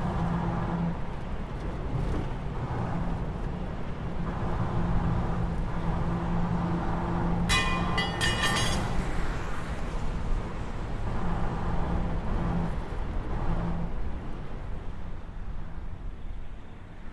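Steady low rumble of road traffic, with a low hum that comes and goes. A brief, high, shrill tone sounds about seven and a half seconds in, and the rumble fades near the end.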